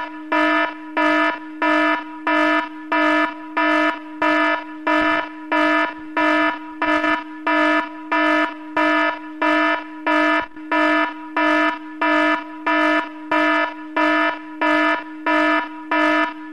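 Electronic alarm signal beeping steadily, about two loud beeps a second, each a fixed low tone with a ringing stack of overtones.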